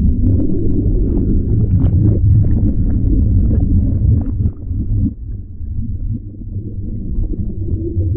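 Churning water and air bubbles heard underwater around a capsized kayaker hanging upside down beneath the kayak: a muffled low rumble with scattered small ticks, quieter from about halfway through.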